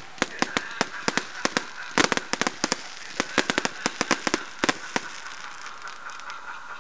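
Fireworks going off: a fast, irregular run of sharp bangs and crackles, several a second, that thins out and stops about five seconds in.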